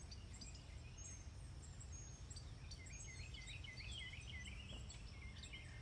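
Birds chirping: short high chirps throughout, joined about halfway by a quick run of repeated chirps, over a steady low rumble.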